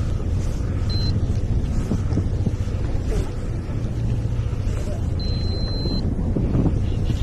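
Steady low rumble of a boat's engine running, with wind on the microphone. A thin high tone sounds twice: briefly about a second in, then for most of a second near the middle.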